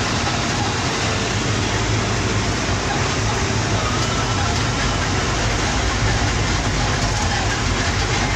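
Steady engine and road noise of a moving bus heard from on board: a low, even rumble under a broad hiss of tyres and wind.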